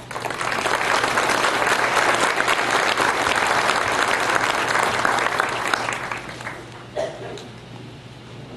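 Audience applauding: dense clapping that breaks out at once and fades away after about six seconds.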